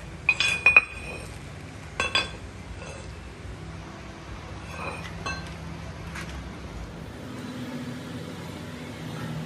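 A rusty metal gear and a round metal disc blank clinking against each other and a steel block as they are handled and set down. A quick cluster of sharp ringing clinks comes near the start, two more about two seconds in, and fainter knocks follow a few seconds later.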